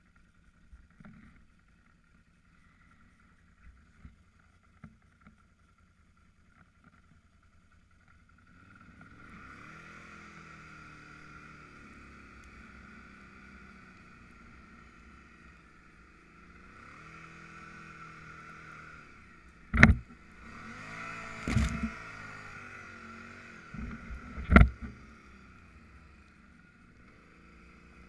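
Can-Am Outlander 800R ATV's V-twin engine pulling through deep snow. It is faint at first and comes up about nine seconds in, its pitch rising and falling as the throttle is worked. Three loud sharp knocks come between about twenty and twenty-five seconds in.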